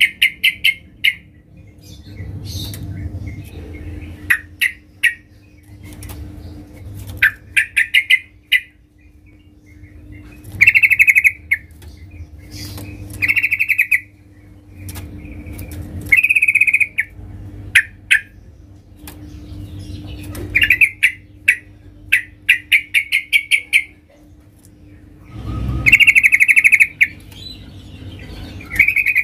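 Yellow-vented bulbul calling loudly in short bursts of rapid chattering notes, one bout every second or two.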